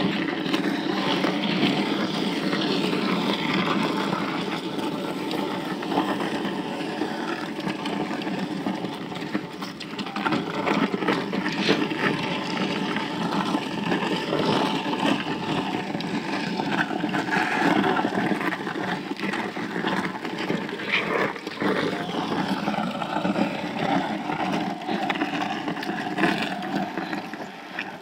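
A vehicle's engine running steadily while moving along the road, with road noise.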